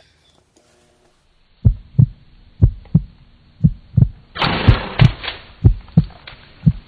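Heartbeat sound effect, a low double thump about once a second, starting about a second and a half in. About four and a half seconds in there is a short burst of hiss.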